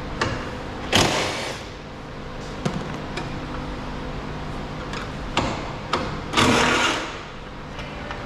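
Hand-tool and trim work on a car's fender: scattered sharp clicks and knocks, with two short rasping noises about a second in and again near six and a half seconds, over a low steady hum.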